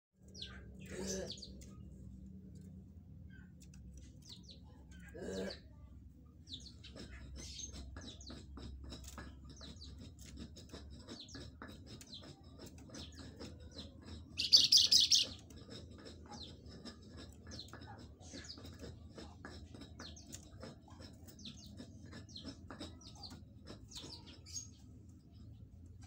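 Caged songbird chirping and twittering again and again in short high notes, with one much louder, harsh burst of song about halfway through.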